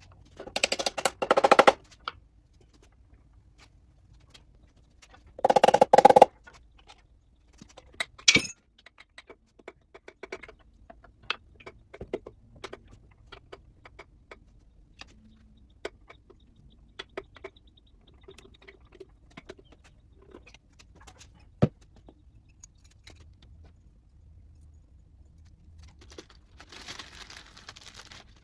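Hand tools and steel engine parts being worked on a small-block engine during teardown. There are short bursts of rapid clicking and rattling near the start and about six seconds in, scattered single clinks and knocks through the middle, and a short hissing burst near the end.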